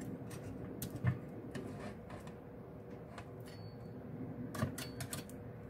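Metal tongs clicking and tapping against a wire cooling rack and sheet pan as grilled pork belly strips are turned over: scattered light clicks, a soft knock about a second in, and a quick cluster of clicks near the end. A faint steady hum runs underneath.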